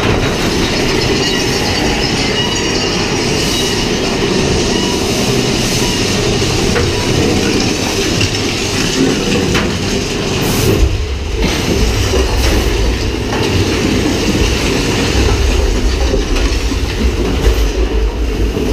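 A theme-park train running along its track with a steady rolling rumble that grows deeper about eleven seconds in.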